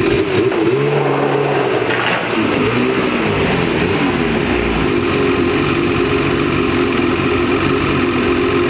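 Two-stroke snowmobile engine, a Ski-Doo 850 E-TEC twin, running with the revs rising and falling over the first few seconds before it settles to a steady pitch.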